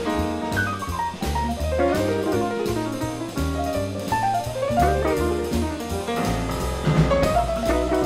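Small jazz group playing: a double bass steps through regular low notes and a drum kit keeps time with cymbal strokes under a fast, running melodic solo line.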